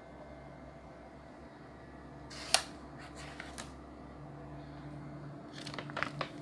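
A low steady hum with one sharp click about two and a half seconds in and a few lighter clicks after it and near the end.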